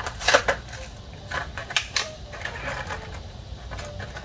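Clicks and clinks of small hard objects being handled, with a few sharp ones near the start and about two seconds in.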